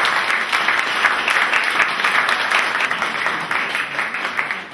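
Audience applauding: a roomful of people clapping their hands, tapering off near the end.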